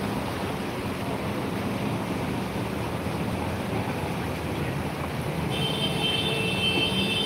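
Muddy floodwater rushing across a road as a steady noise, with the low hum of vehicle engines as cars wade through it. A steady high tone comes in about five and a half seconds in.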